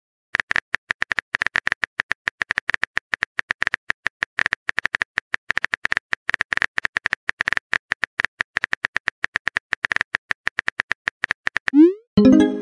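Rapid phone-keyboard typing clicks, several a second, as a text message is typed out. Near the end a short rising swoosh and a brief electronic tone sound as the message is sent.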